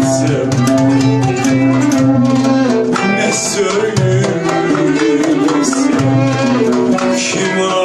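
A small Turkish ensemble of oud, violin, kanun and frame drum playing a melody together, the plucked and bowed strings over a steady, even drum beat.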